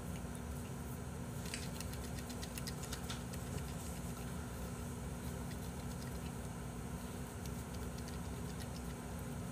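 Steady low room hum with one held low tone, plus faint rustles and a few small clicks as eyeglasses are wiped with a cloth.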